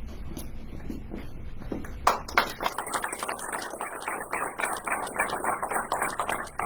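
Audience clapping, starting sharply about two seconds in after a few soft taps and shuffles.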